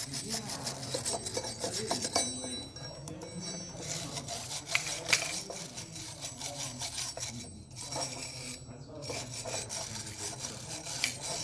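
Hand tool scraping and chipping at a casting mold to free a cast bronze claw, with continual rasping strokes broken by many sharp clicks and knocks.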